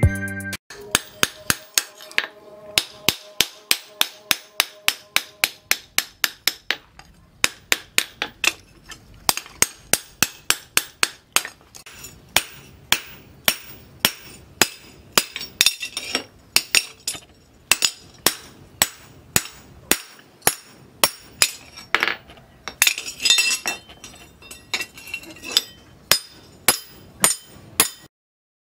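Hand hammer striking a red-hot steel axe head on a steel post anvil: a long run of ringing metal-on-metal blows at about two to three a second, with a few short pauses, stopping suddenly shortly before the end.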